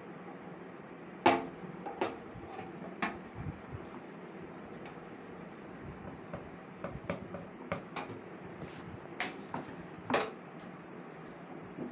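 Irregular metallic clicks and knocks from tools and parts being handled while a domestic gas stove is taken apart. A few are sharp with a short ring, and many lighter ticks fall between them.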